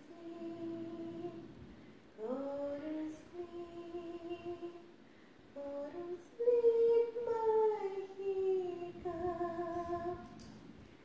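A woman singing a lullaby unaccompanied, in several phrases of long held notes that glide in pitch.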